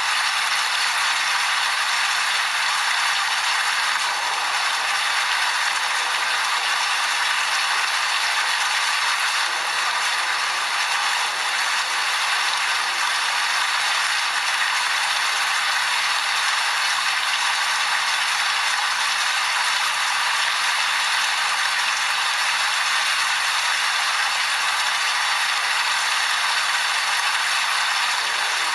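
Steady rain falling: an even, unbroken hiss of many small drops.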